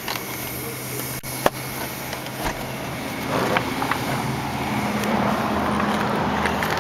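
Steady hum inside a car with a few light clicks as the interior trim is handled, the sharpest about one and a half seconds in. From about halfway the car door is opened and the sound grows louder and more open as outside noise comes in.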